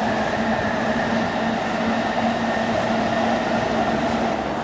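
JR Chuo Line electric commuter train running past, a steady rumble of wheels on track with a constant motor hum.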